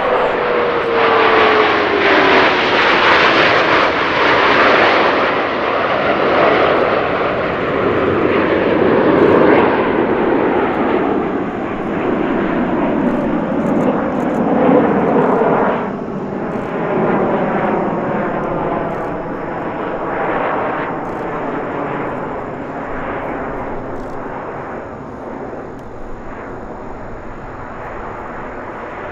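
A formation of Snowbirds CT-114 Tutor jets, each powered by a single J85 turbojet, flying past in a steady jet roar. A whine falls in pitch in the first couple of seconds as they pass, and the roar grows quieter toward the end.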